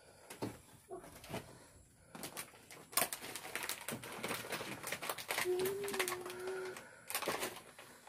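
Rustling and clicking of hands twisting and joining loose wires on a washing machine's wiring. About five and a half seconds in there is a low steady tone lasting about a second.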